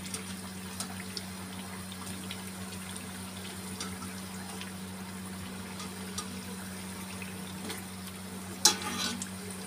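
Mathri deep-frying in hot oil in a kadhai: a steady sizzle with scattered small crackles as the discs are turned with a wire skimmer. Near the end, a sharp metallic knock and scrape.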